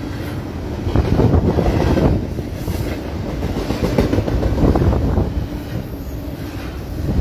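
Double-stack intermodal freight train's well cars rolling past: a steady rumble and clatter of steel wheels on rail, swelling and easing every second or two.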